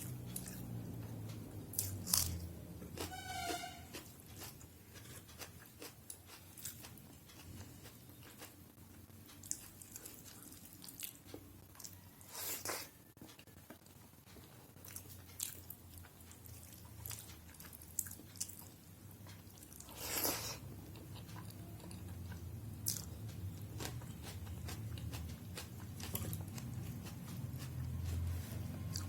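Close-miked eating: chewing with scattered crunches, bites and wet mouth clicks. A brief pitched sound comes about three seconds in.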